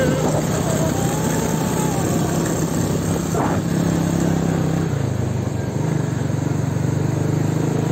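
Motorcycle engine running steadily under way, its note changing about five seconds in.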